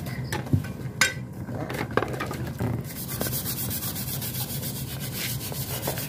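Fast, even back-and-forth scrubbing on Suzuki RC100 motorcycle engine parts being cleaned of oil grime. It starts about three seconds in, after a few sharp metal clinks.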